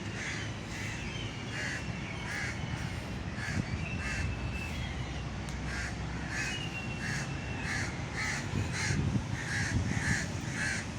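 Birds calling: a long run of short repeated calls that come about twice a second in the second half, with a few thin whistled notes in between.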